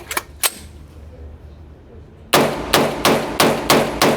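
Gunfire: two quieter shots in the first half second, then, a little past two seconds in, a steady string of loud rapid shots, about three a second.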